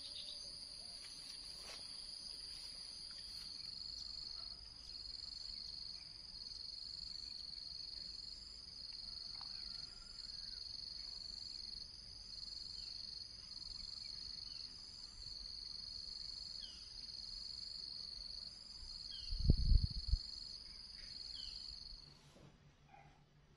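Steady high-pitched insect chorus, a continuous shrill buzz that wavers slightly. A brief low rumble or thump comes about twenty seconds in, and the insect buzz cuts off abruptly near the end.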